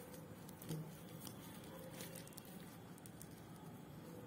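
Faint, soft taps and clicks over quiet room noise from a wire whisk and spoon working at a bowl of thick semolina cake batter.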